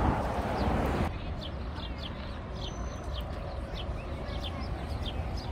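A small bird chirping over and over: short, high, falling chirps about twice a second, over a low steady rumble. A broad rushing noise, like a passing vehicle, cuts off abruptly about a second in.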